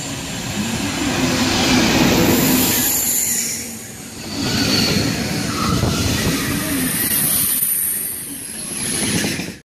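TGV Lyria high-speed train passing close along a station platform: a loud rush of wheels on rail that swells and dips as the cars go by, with a faint high whine over it. It cuts off suddenly near the end.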